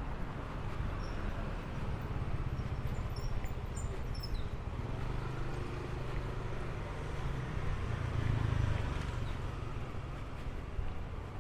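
City street ambience: a steady low traffic rumble that swells about eight seconds in as a vehicle passes close by, with a few faint high chirps in the first few seconds.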